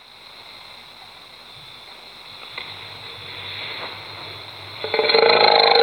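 A screen recording's audio played back at a quarter of its speed, pitch dropped with it. A low hiss of slowed room noise runs first, then about five seconds in a man's voice comes in, slowed into a deep, drawn-out drone.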